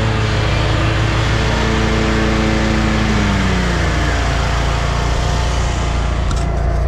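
Lawn mower engine running steadily, its pitch dropping about three to four seconds in.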